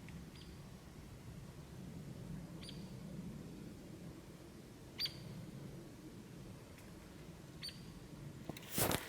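Faint, short, high-pitched animal chirps, four of them about two to three seconds apart, each dropping slightly in pitch, over a low steady background rumble. A brief rustling burst comes near the end.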